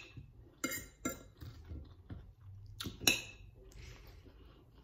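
Metal fork and knife clinking against a plate while cutting food: four sharp, ringing clinks, two in the first second or so and two close together about three seconds in.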